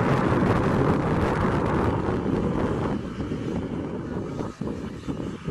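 Steady rumble of aircraft and ground-vehicle engines on an airport apron, with wind on the microphone. The rumble is loudest in the first half and eases off about halfway through.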